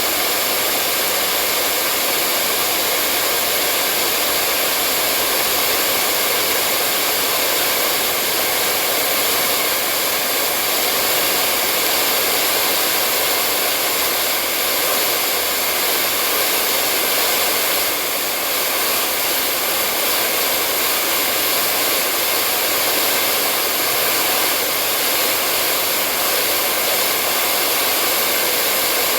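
Hair dryer blowing continuously: a steady rushing of air with a faint motor whine, unchanging in level.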